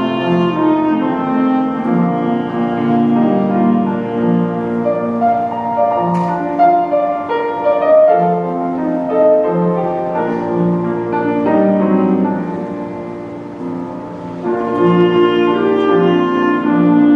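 Orchestra with piano playing a slow classical-style piece, with wind and string parts. It grows quieter about twelve seconds in and swells back up a couple of seconds later.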